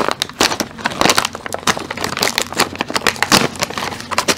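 Plastic snack packet being pulled open and handled, a loud, irregular crinkling and crackling of the bag.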